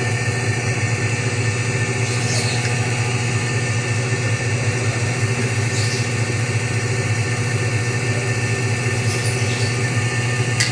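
Whirlpool automatic washing machine running, a steady motor hum, with a faint brief swish three times. It is working again after its E2 fault was traced to the water sensor.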